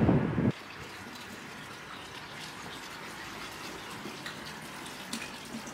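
Wind buffeting the microphone, cut off abruptly about half a second in, then a faint steady hiss of background noise.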